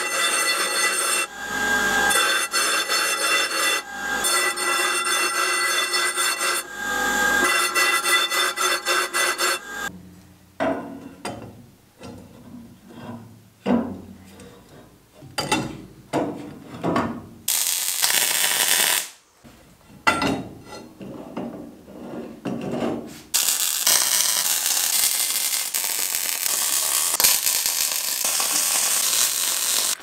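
Abrasive chop saw running with a steady whine as it cuts steel pipe, stopping about ten seconds in. Then steel tube being handled and worked by hand, with irregular scraping and knocking and one short loud hiss. About twenty-three seconds in, a Fronius TransSteel MIG welder starts its steady crackling as it welds the steel tube frame.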